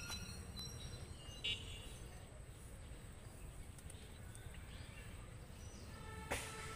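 Outdoor background noise: a steady low rumble with a few brief high chirps, one about one and a half seconds in, and a sharp click near the end.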